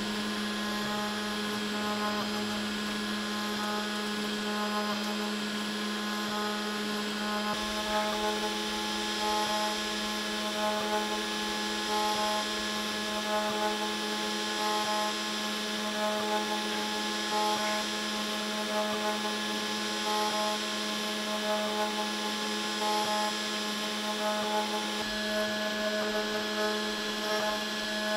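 Wizmaker Artisan 01 desktop CNC router engraving pine with a 30-degree V-bit: the spindle runs with a steady whine while the bit cuts, and higher tones pulse and shift as the machine moves.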